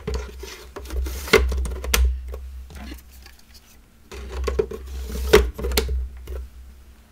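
Plastic drive trays of a QNAP TS-453E NAS sliding into their bays and clicking into place, one tray in the first two seconds and another from about four seconds in, each with rattling, sharp clicks and dull knocks against the case.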